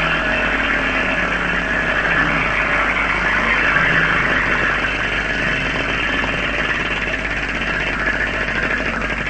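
Large prize wheel spinning, its pointer clattering rapidly against the studs on the rim in a dense run of clicks, slowing and thinning out near the end as the wheel comes to rest.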